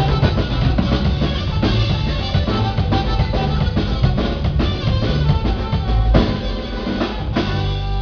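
A live band playing with a drum kit, with quick, even drum hits over bass and other instruments; about seven seconds in, the drumming stops and the band holds a sustained final chord.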